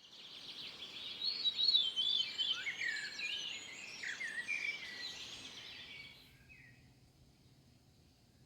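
Birds singing outdoors, a busy run of quick chirps and whistled slides that fades away about six seconds in.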